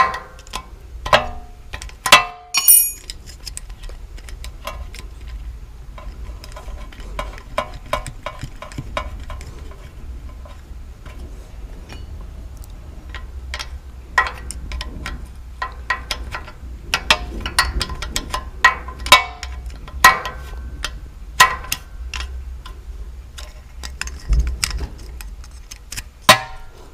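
Steel combination wrench clicking and clinking against a 10 mm bolt head as the ABS wheel sensor's bolt is tightened by hand: irregular sharp metal taps, some with a brief ring, over a low steady hum.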